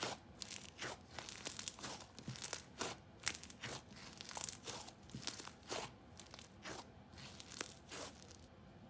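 White glue snow fizz slime squished by hand, giving faint, irregular crackles, sizzles and small bubble pops.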